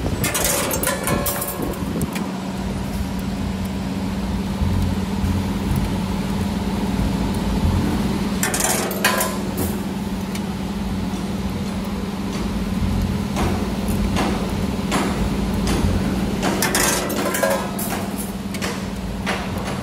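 CNC 3D wire-bending machine at work, bending a 7 mm steel rod. Its drives give a steady hum, and the bending head and clamps make sharp metallic clanks and clicks in several groups: just after the start, around the middle, and repeatedly in the last few seconds.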